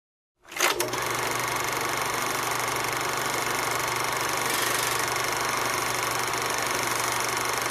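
Film projector running: a steady mechanical whirring clatter that starts abruptly about half a second in.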